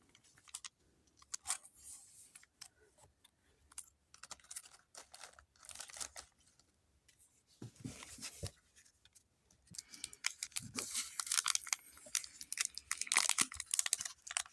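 Foil booster pack wrapper crinkling and tearing while trading cards are handled, in scattered short rustles and clicks that grow busier and louder in the last few seconds.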